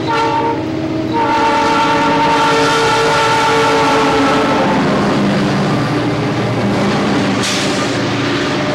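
Air horn of a D&RGW diesel freight locomotive sounding a chord in two blasts, the second held until about halfway, then the locomotives' engines and wheels rumbling past close by, with a short sharp hiss near the end.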